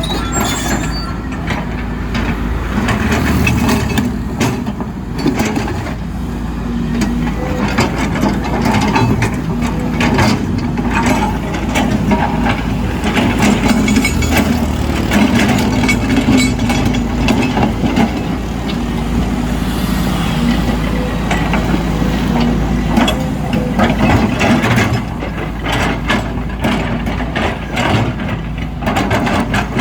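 Volvo EC210 excavator's diesel engine running steadily under load, with frequent knocks and clatters of the bucket scraping and breaking up asphalt.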